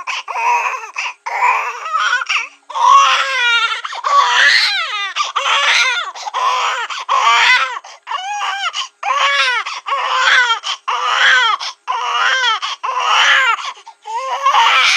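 Cartoon baby-crying sound effect: a baby wailing in repeated short cries, most of them falling in pitch, with brief catches of breath between.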